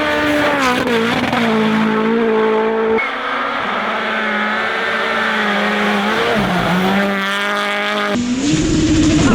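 Rally1 rally cars' turbocharged four-cylinder engines at full throttle, across a few spliced clips. The engine note dips and recovers a couple of times, then climbs near the end, with abrupt jumps to a new car about 3 and 8 seconds in.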